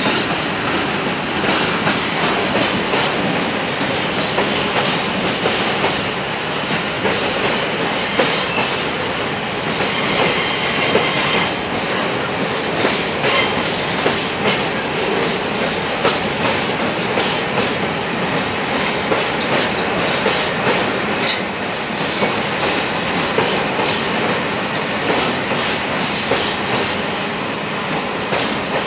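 Loaded or empty open hopper wagons of a freight train rolling past on a curve: a steady clatter of wheels over rail joints with short clicks, and a thin high wheel squeal from the curve.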